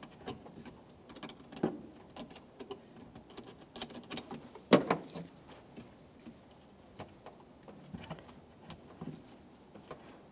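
Light, irregular metal clicks and clinks of a 10 mm wrench loosening the clamp nut on a car battery's negative terminal, with one louder knock about halfway through.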